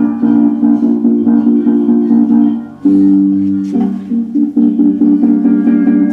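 Music led by plucked guitar playing sustained chords, with a fresh chord struck about three seconds in.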